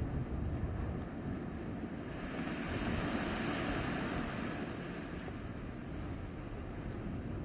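Blizzard wind blowing steadily with a low rumble. About two seconds in it swells into a louder hissing gust, which eases off by about five seconds.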